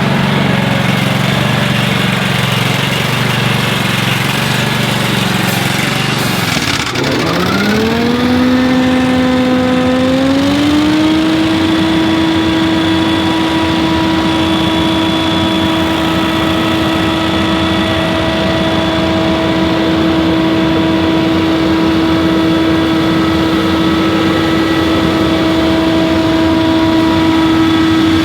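Scag Windstorm stand-on leaf blower's engine running steadily at low speed. About seven seconds in it dips, then rises in pitch in two steps to a steady, higher-pitched run at full throttle.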